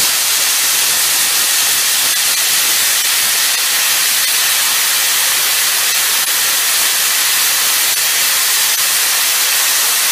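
Hypertherm handheld plasma cutter cutting through steel plate: a loud, steady hiss of the arc and air jet. The machine is set to the lowest air pressure at which it will still cut.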